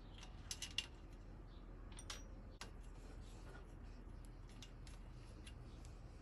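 Faint, scattered metal clicks and taps as a bicycle front derailleur is handled and offered up to its mount on the aluminium seat tube: a few clicks in the first second, a sharper click about two seconds in, then lighter ticks.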